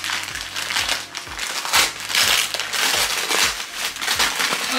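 Gift wrapping crinkling and rustling in uneven handfuls as a large wrapped item is opened by hand.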